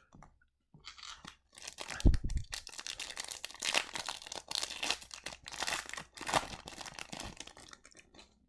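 Foil wrapper of a hockey trading card pack being torn and crinkled by hand, a long run of crackling with a dull thump about two seconds in.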